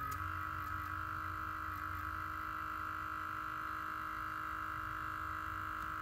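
HyperSmoke automotive smoke machine's built-in 12 V air compressor running steadily, a low hum with a steady whine, set to the low-pressure EVAP mode (0 to 1 PSI). Its pitch dips briefly a few times in the first couple of seconds.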